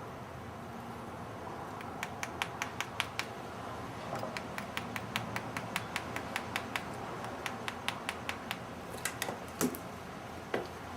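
Valve lapping by hand: a Ford 302 valve is spun back and forth against its seat with a lapping stick and grinding compound, giving quick runs of gritty clicks at about five a second, with a couple of louder knocks near the end.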